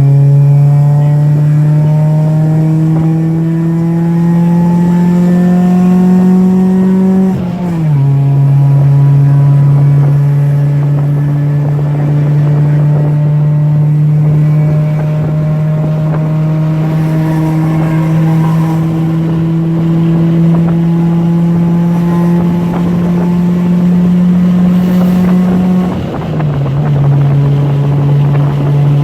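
Honda Civic D16Y8 four-cylinder engine, fitted with a new cold air intake, pulling under load. Its pitch climbs steadily and drops sharply at an upshift about seven seconds in, then climbs slowly through a long pull and drops at another shift near the end.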